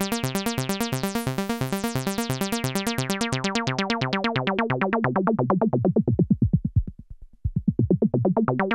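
Roland SH-101 analog monosynth playing a fast arpeggiator pattern while its filter cutoff is swept down. The notes grow duller and quieter until they almost vanish about seven seconds in, then the filter is opened again near the end.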